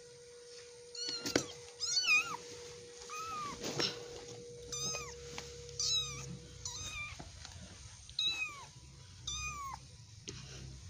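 A kitten mewing repeatedly in short, high-pitched calls, about eight of them, each rising then falling in pitch.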